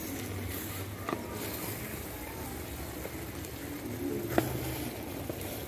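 Creamy shrimp sauce simmering and bubbling steadily in an aluminium pot around pieces of fried fish, with two sharp knocks of a wooden spoon against the pot, about a second in and again near the end.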